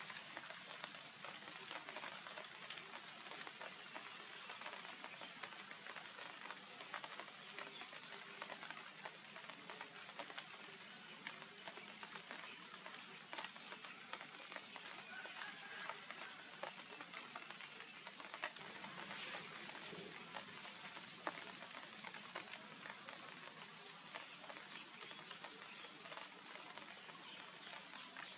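Steady, faint crackling hiss of outdoor background noise, with a few short high chirps in the second half.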